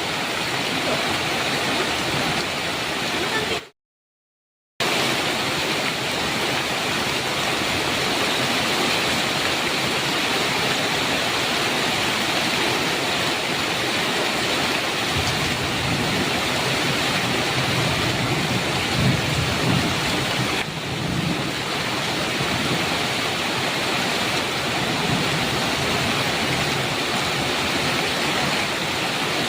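Heavy rain pouring steadily, with a low rumble of distant thunder rolling through its middle part. About four seconds in, the sound cuts out completely for about a second, then the rain resumes.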